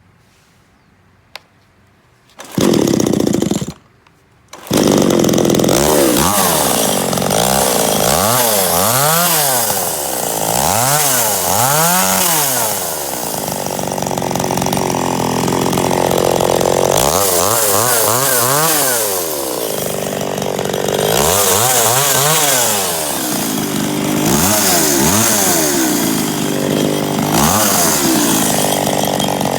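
Makita ME333 two-stroke chainsaw being started. It fires briefly about two and a half seconds in and stops, then catches just before five seconds and keeps running, revved up and down over and over.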